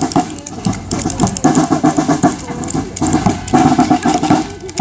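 Marching band drums playing, with snare drum strokes throughout and louder stretches of band sound about a second and a half in and again near the end.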